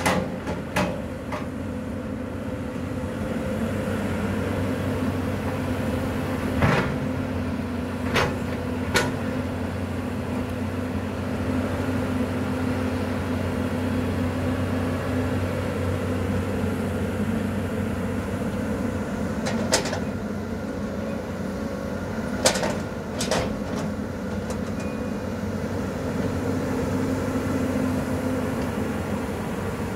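Caterpillar 320D long-arm excavator working, its diesel engine running at a steady drone, with a handful of sharp knocks from the digging at irregular intervals.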